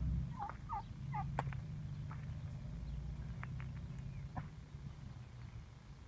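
Domestic turkey calling: a quick run of three or four short, hooked notes in the first second or so, then only faint scattered ticks.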